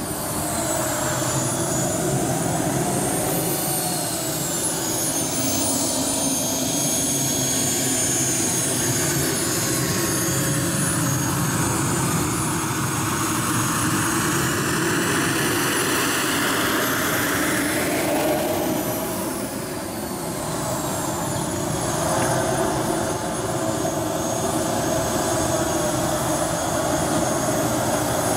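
JetCat P-180 model jet turbine in a Sebart Avanti S RC jet running as the model taxis, a high whine over the steady rush of its exhaust. The whine rises and falls several times with the throttle, then holds steady over the last few seconds.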